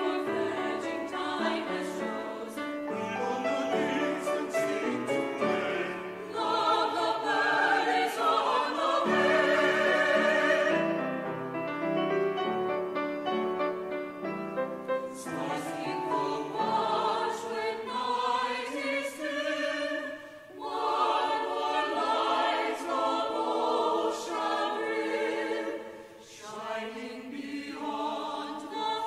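Church choir singing in several-part harmony, with brief breaks between phrases about twenty and twenty-six seconds in.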